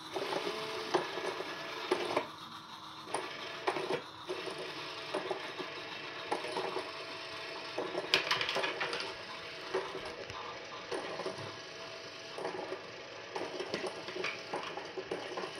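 JML Pop n Play motorised cat toy running: its small motor and gears whir steadily as they spin the feather wand round inside the plastic dome. Irregular plastic clicks and taps come through it, with a sharper cluster about halfway through.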